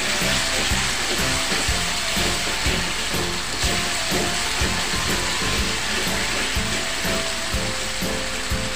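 Spice paste frying in oil in a wok, a steady sizzle as it is stirred with a wooden spatula, with background music playing over it.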